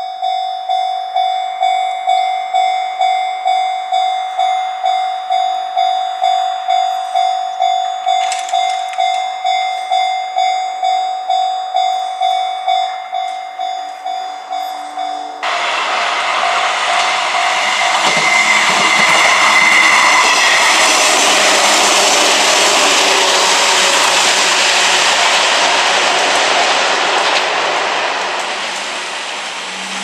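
Japanese level-crossing warning bell ringing steadily, about two strokes a second. About halfway through it gives way to the loud rushing noise of a passing train, loudest around two-thirds of the way in and fading toward the end.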